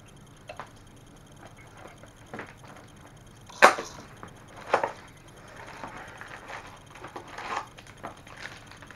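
Small plastic blind-bag packets being pulled open and handled: crinkling and rustling, with two sharp clicks about a second apart near the middle.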